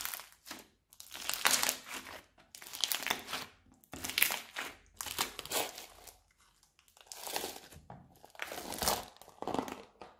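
Hands squeezing and peeling a clear slime packed with foam beads and plastic pieces, in a run of about nine short crunching, crinkling bursts, each under a second.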